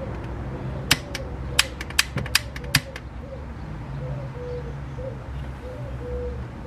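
A gas torch being worked: a quick run of about eight sharp clicks in the first few seconds, over a steady low rumble.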